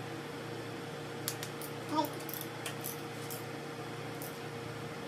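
Scattered sharp clicks from a click-type torque wrench and socket as the intake manifold bolts are run down to 106 inch-pounds, over a steady hum. A short voice-like sound about two seconds in is the loudest moment.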